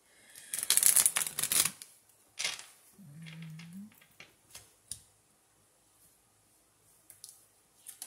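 Tarot cards being shuffled by hand, with a loud rush of about a second shortly after the start. A few light taps follow as cards are set down on the table.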